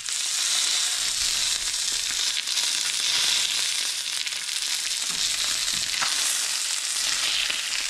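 Pre-marinated chicken sizzling as it fries on the stove: a steady hiss with a few faint pops, the heat high enough that it is close to burning.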